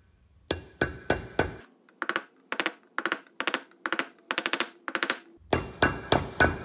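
Hammer tapping a brass drift set across an old bearing race to drive a new outer wheel-bearing race into a Toyota front hub. It makes a long series of sharp metallic taps, about three a second, each with a short ring.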